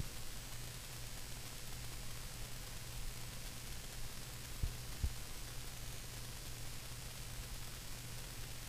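Faint steady hiss and low hum of room tone, with two soft low thumps about halfway through.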